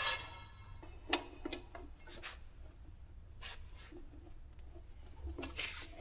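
Sparse short scrapes and clicks of metal parts being handled, about five in six seconds, the sharpest about a second in.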